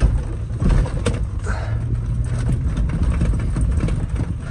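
Truck engine running under load as the truck slides and jolts through slippery mud ruts, with many short knocks and rattles from the body and suspension.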